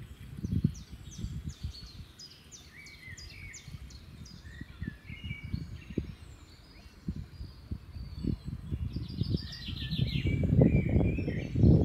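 Small birds chirping, with short high calls and falling notes and a quick run of repeated notes about nine seconds in. Under them, low rustling and knocks that grow louder near the end.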